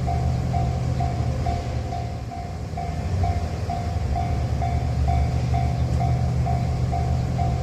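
Japanese level crossing bell ringing its steady electronic 'kan-kan' about twice a second, over the low rumble of a JR Shikoku 2700 series diesel railcar's engines.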